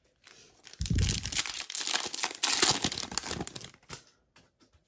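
A foil wrapper of a 2021 Panini Prizm Draft Picks trading card pack being torn open and crinkled by hand. The crackling starts about a second in and goes on for roughly three seconds, loudest near the start and again midway.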